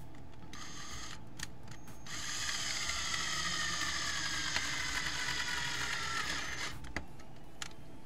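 Cordless drill turning a screw in a wall mount: a short burst of motor whine, then a longer run of about four and a half seconds whose whine sinks slightly in pitch. A few sharp clicks follow near the end.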